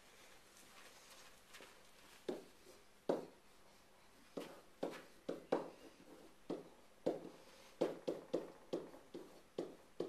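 Pen knocking and tapping against an interactive whiteboard while writing: a run of short, sharp knocks that starts about two seconds in and comes faster, about three a second near the end.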